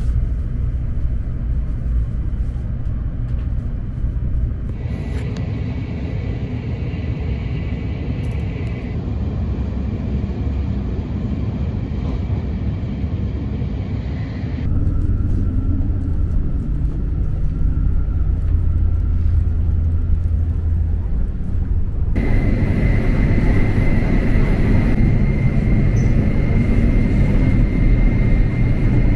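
Steady low rumble of a Shinkansen bullet train running at speed, heard from inside the train. The noise changes abruptly a few times. Near the end it is louder, with a steady high whine over the rumble.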